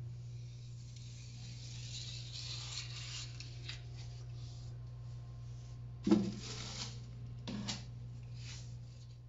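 Rubbing and scraping while silicone sealant is run along a shower's floor joint with a caulking gun, over a steady low hum. Two sharp knocks come about six and seven and a half seconds in.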